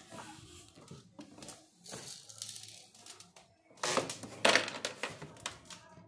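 Small knocks, clicks and scrapes of plastic and metal parts being handled as a washing machine gearbox is worked into place in the machine's plastic base, with a louder cluster of knocks about four seconds in.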